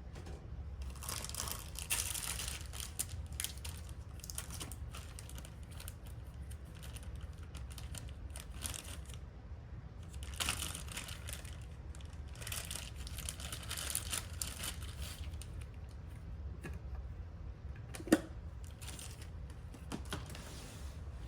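Rustling and crinkling of things being handled, in several spells, with scattered light clicks and one sharp click or knock about eighteen seconds in, over a steady low hum.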